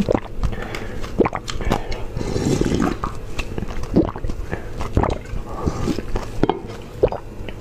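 Broth being slurped and swallowed straight from the rim of a large pan, with a short sharp gulp roughly once a second between noisier sips.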